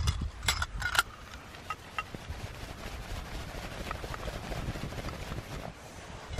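Wood chips and charcoal crackling and ticking as they burn in a small stainless-steel Solo Stove twig stove, with two sharper snaps about half a second and one second in, over a low rumble.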